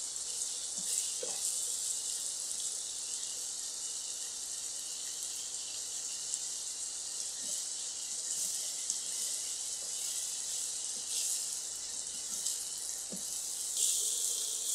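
Beaten egg sizzling steadily in hot oil in a stainless steel pan as it is scrambled with a slotted spatula, with a few light scrapes. The sizzle gets louder near the end.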